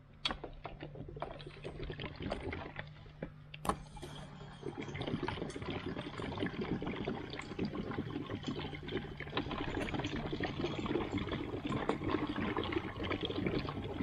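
Diesel pouring from a push-button 5-gallon jerry can into a compact tractor's nearly empty fuel tank. Some clicks and knocks come first as the spout is fitted to the filler neck. The pour starts about four seconds in as a steady gush that gets gradually louder.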